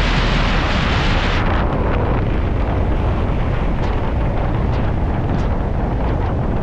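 Strong wind buffeting the microphone, a loud steady rumbling roar; about a second and a half in, the hiss above it thins out.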